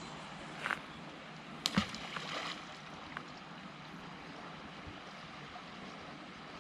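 River water running steadily, with a few short louder noises breaking in, the loudest just under two seconds in.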